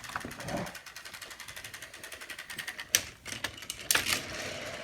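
Battery-powered toy train running along plastic track: a fast, even clicking throughout, with a couple of louder clicks about three and four seconds in.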